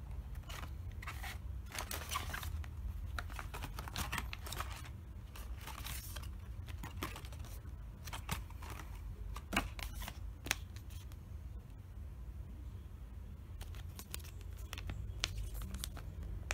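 Hands handling a cardboard box insert and plastic-wrapped filter pads: scattered rustles, crinkles and light clicks in irregular clusters, over a steady low hum.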